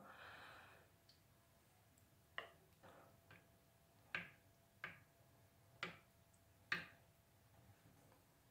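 Near silence broken by about six faint, short clicks, spaced irregularly: a serving spoon touching a glass baking dish and porcelain plates as pieces of baked pumpkin are lifted out.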